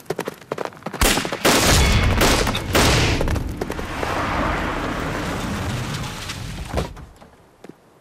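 A burst of four or five loud gunshots about a second in, followed by a long rolling rumble that fades away near the end.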